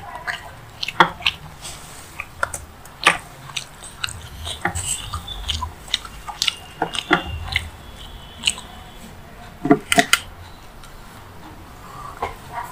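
Close-miked chewing of a mouthful of rice and paneer masala eaten by hand, with wet lip smacks and sharp mouth clicks coming irregularly and a quick run of loud ones near the end.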